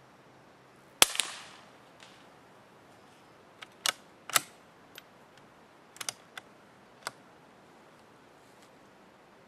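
A single sharp shot from a CZ 452 Ultra Lux .22 LR bolt-action rifle firing low-velocity CCI Quiet ammunition, about a second in, with a short echo. Then the bolt is worked open and closed in a series of metallic clicks.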